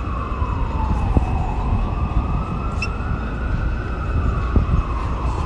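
Emergency vehicle siren on a slow wail, its pitch falling and rising about once every three to four seconds, over a steady low rumble.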